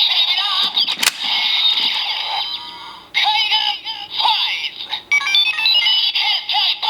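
Kamen Rider Ghost Legend Rider Eyecon toy for Faiz playing its electronic transformation sound effects: synthesized voice and music from its small speaker. There is a sharp click about a second in, and a run of stepped electronic tones near the end.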